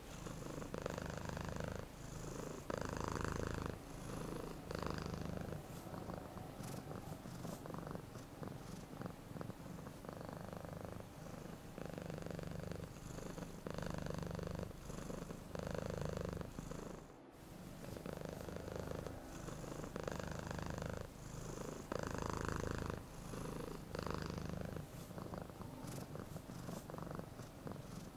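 Domestic cat purring steadily, the purr swelling and easing with each breath about every two seconds. There is a brief break about 17 seconds in.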